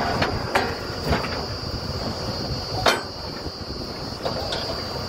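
Truck-mounted borewell drilling rig running steadily with a constant high whine, overlaid by several sharp metal clanks from the drill head and pipe work, the loudest about three seconds in.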